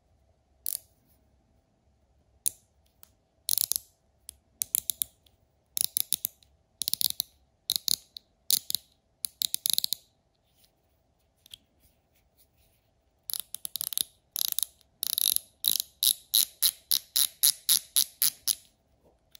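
Wera 1/4-inch mini ratchet clicking as its drive is turned by hand: short runs of rapid pawl clicks with pauses between them, then a quiet spell, then longer, faster runs near the end.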